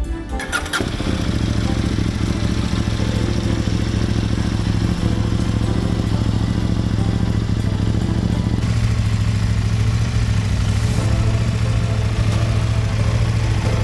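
KTM 890 Duke GP's parallel-twin engine is started with a brief crank about half a second in, then idles steadily, with no revving, through a Competition Werkes GP slip-on exhaust.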